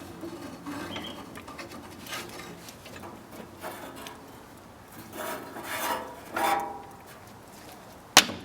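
Irregular scraping and rubbing strokes, louder for a couple of seconds past the middle, then one sharp knock near the end.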